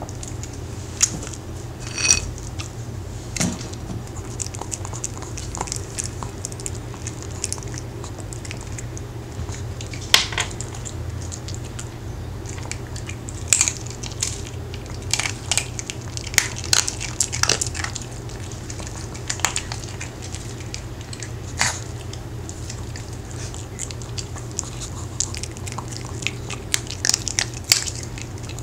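Maltese dog biting and crunching hard homemade sweet potato cookies, with irregular sharp crunches that come in clusters, most of them in the second half, over a steady low hum.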